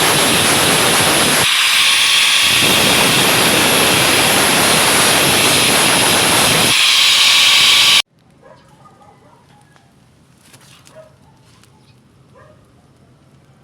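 Welding arc hissing loudly and steadily, cutting off abruptly about eight seconds in and leaving only faint background sounds.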